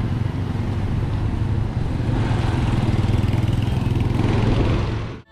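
An engine running steadily at an even, unchanging pitch, then cutting off suddenly near the end.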